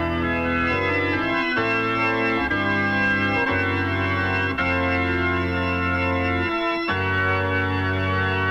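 1972 Italian progressive rock recording: sustained organ chords that change every second or so.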